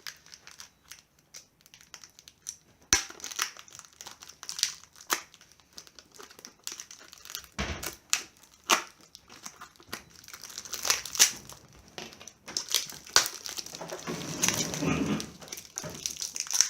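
Packaging being unwrapped by hand: irregular crinkling and crackling with sharp snaps and some tearing, with a dull knock about eight seconds in.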